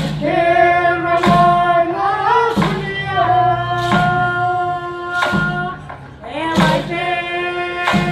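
Singing of an Indigenous Australian dance song in long held notes, over a single struck beat about every one and a third seconds.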